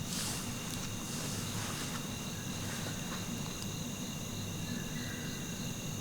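Crickets chirring steadily in a night chorus, several high continuous trills layered together.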